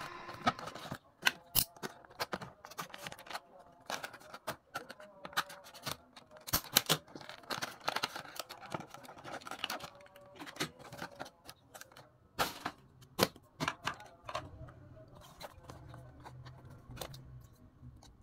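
Stiff clear plastic blister packaging of 1:64 diecast model cars being handled and opened: irregular clicks and crackles of the plastic, with a few louder snaps.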